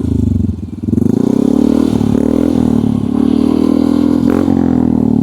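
Yamaha Mio i 125 scooter's single-cylinder four-stroke engine revved at low RPM through a HUN V2 aftermarket exhaust with its silencer insert removed. The pitch rises and falls with repeated throttle blips.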